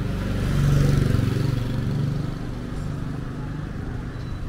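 A motorbike engine passing close by, rising to its loudest about a second in and then fading, over steady street traffic noise.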